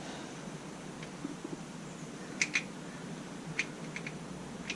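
A few light, sharp clicks and taps from small parts being handled: a quick pair about halfway through, then several more single clicks near the end.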